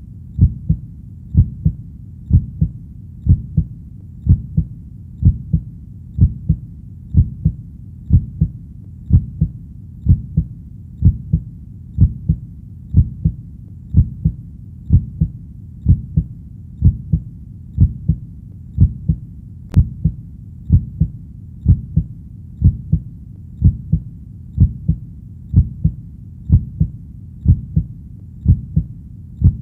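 Heartbeat, a steady lub-dub double thump repeating at about one beat a second.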